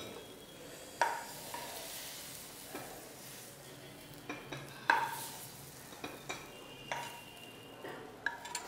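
A metal ladle clinks and scrapes against a steel frying pan as fried mutton is spooned out of it, with a faint sizzle underneath. The scattered clinks ring briefly, and the loudest comes about five seconds in.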